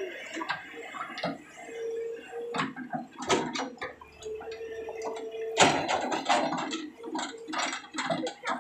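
Tata Hitachi EX200 excavator bucket digging into stony soil and rubble: irregular clicks and knocks of teeth and stones that thicken into dense crunching about halfway through, with a steady whine heard twice.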